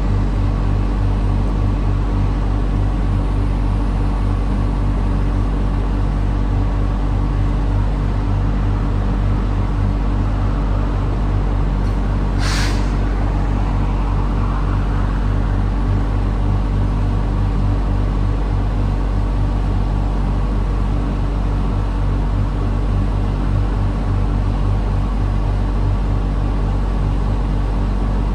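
Diesel multiple unit standing in the station with its diesel engines idling steadily. About halfway through, one short sharp hiss of compressed air is released.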